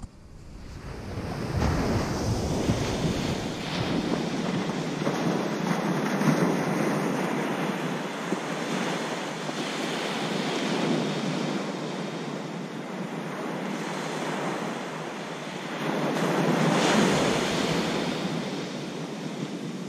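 Ocean surf breaking and washing up the beach, swelling louder every several seconds, with wind buffeting the microphone.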